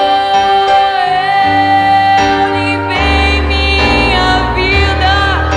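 A woman singing long held notes over piano, violin and acoustic guitar: a slow Brazilian ballad (MPB) performed live.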